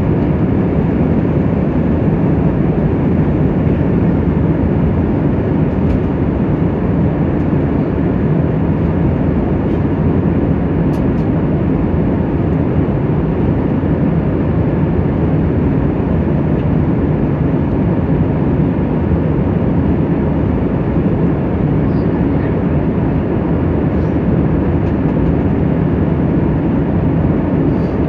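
Airliner cabin noise at cruise: a steady, even rush of engine and airflow noise heard from inside the cabin.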